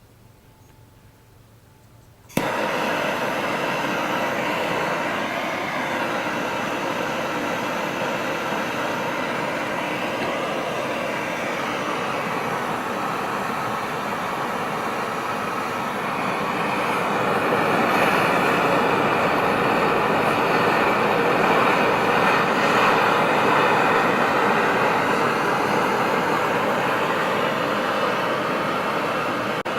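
Electric power tool switched on about two seconds in and running steadily on a steel railroad spike, growing louder about halfway through as it works the metal.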